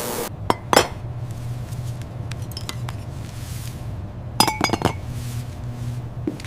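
A few light clinks and taps, with a quick cluster of ringing clinks about four and a half seconds in, over a low steady hum.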